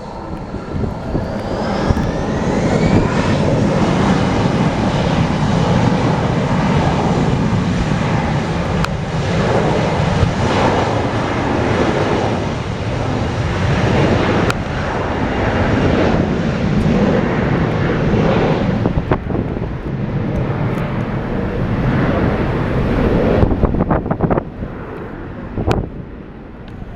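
Airplane passing close, a loud steady engine roar with a whine that rises in pitch over the first few seconds. The higher part of the sound fades away after about nineteen seconds and the whole sound falls off near the end.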